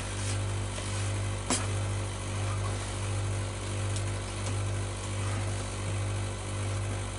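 A steady low machine hum that swells and fades in a slow regular pulse, a little more than once a second, with a single short click about a second and a half in.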